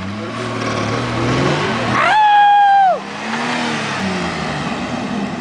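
Pickup truck engine revving as it pushes through mud and grass, the engine note climbing slowly. About two seconds in, a loud whoop from a person rises, holds for about a second, then drops away.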